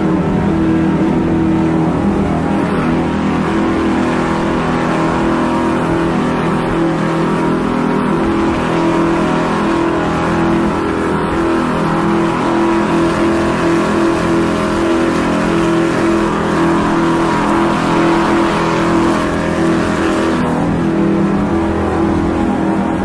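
Boat engine running steadily under way: a constant loud drone, with a hiss that swells in the middle and eases near the end.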